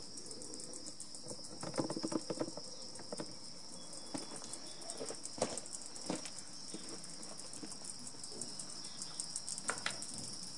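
Crickets chirping in a steady, high, continuous trill, with a few soft clicks and knocks around two seconds in, in the middle and near the end.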